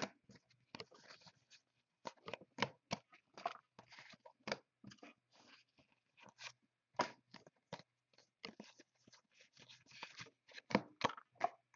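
Faint handling of trading cards and their foil pack wrappers: irregular crinkles, snaps and clicks of wrapper and card stock.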